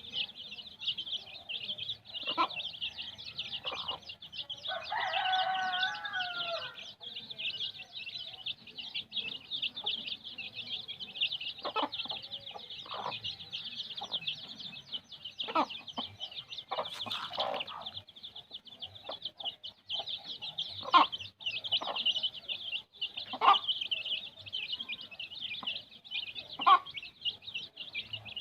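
Many kampung chicken chicks peeping nonstop in high, rapid peeps. An adult chicken's short clucks break in every few seconds, and a longer drawn-out call comes about five seconds in.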